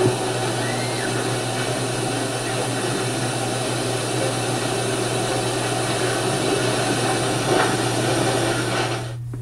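Steady hiss with a constant low hum: background noise of the recording, with no other distinct sound. It dips briefly just before the end.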